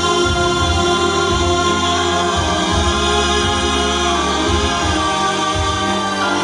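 Vocal ensemble singing long held chords over an instrumental accompaniment with a pulsing bass line.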